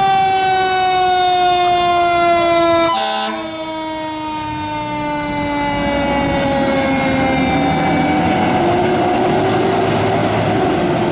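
A fire engine's Federal Q mechanical siren winding down in a long, slowly falling wail, with a short air-horn blast about three seconds in. The truck's engine and road noise build as it pulls away, and the siren's pitch lifts briefly again near the end.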